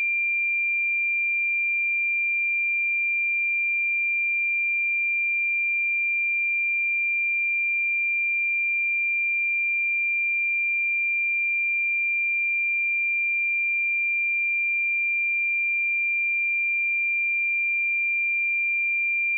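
A steady, unbroken 2381 Hz sine-wave test tone: one pure high-pitched tone held at constant pitch and level.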